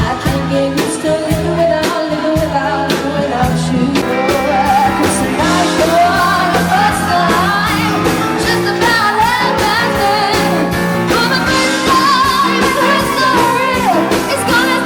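A pop-rock song: a singer over instruments and a steady drum beat.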